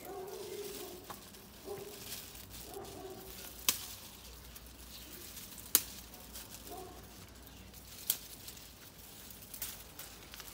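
Dried flower heads being picked and dropped into a plastic bag: soft rustling with three sharp snaps, about two seconds apart.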